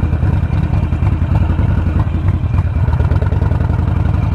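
Harley-Davidson Sportster Forty-Eight's air-cooled V-twin engine running as the bike rolls at low speed, a steady low rumble of rapid firing pulses.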